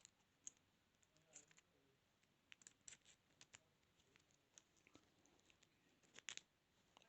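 Faint, irregular small clicks and scratches of lock picks working the pins of a 32mm padlock, a few clicks at a time with short pauses between, the loudest cluster near the end.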